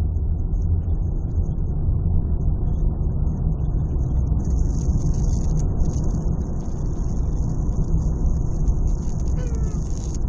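Steady low rumble inside a Range Rover Evoque's cabin. About four and a half seconds in, a high hissing rustle starts and keeps going: the car's audio speaker rustling, the fault the owner is demonstrating.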